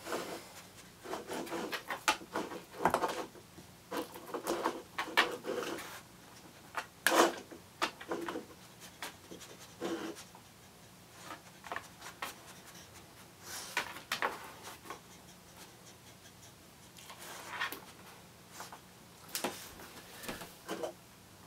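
A dog's claws clicking and scuffing on a hardwood floor as it moves about, with a light plastic cup being nosed and knocked across the floor, in irregular clusters of short clicks with quiet gaps between.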